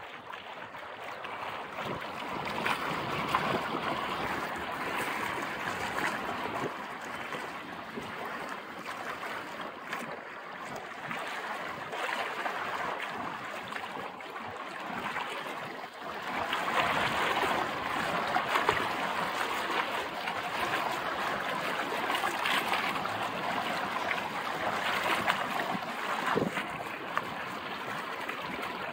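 Water rushing and splashing along the hull of a felucca under sail, in uneven surges that grow louder in the second half.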